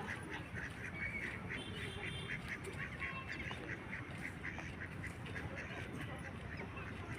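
A flock of waterbirds calling together: a continuous chatter of many short, rapid overlapping calls, with a few louder higher calls standing out now and then. A low steady rumble runs underneath.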